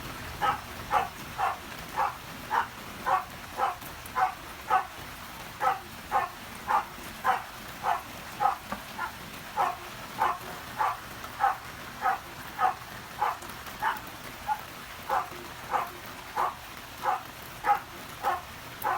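An animal calling over and over, short even calls about two a second, with a faint hiss of rain behind.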